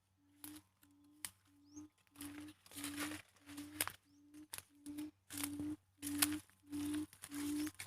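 A buttonquail's low hooting call, a short note repeated about twice a second and growing louder, as a decoy calls to lure wild buttonquail into the trap. Rustling, crinkling noise from movement in dry vegetation comes in between the notes.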